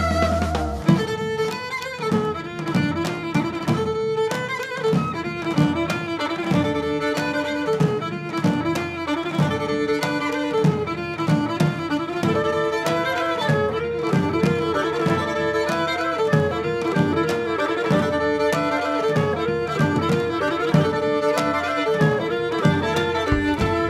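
Instrumental band music: a violin plays a quick melody over bass and a steady beat, after a held chord ends about a second in.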